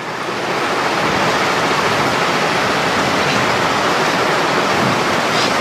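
Steady rushing, hiss-like background noise with no speech, growing a little louder over the first second and then holding even.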